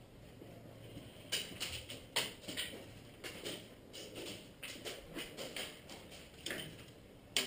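Airsoft guns firing: a string of irregular sharp snaps and clicks from about a second in, some louder and closer, with a loud snap at the end.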